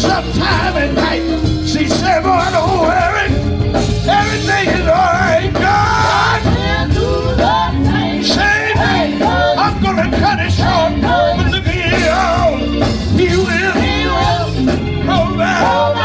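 Gospel group singing live with a band: several voices holding wavering notes over drums and a stepping bass line.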